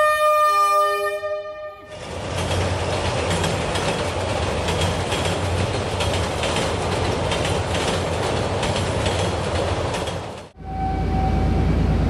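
Diesel locomotive's horn sounding a chord of several steady tones for about two seconds. Then a passenger train passes close by, its wheels rumbling on the rails with repeated clacks.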